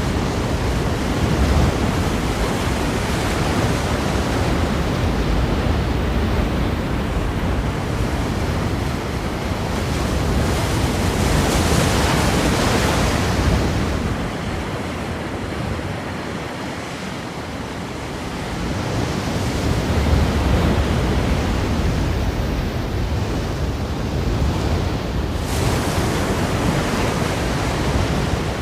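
Ocean surf breaking against rocks: a continuous rush of water with a low rumble that swells and eases as waves come in. A bigger wave breaks about twelve seconds in, a quieter lull follows, and another wave hits suddenly near the end.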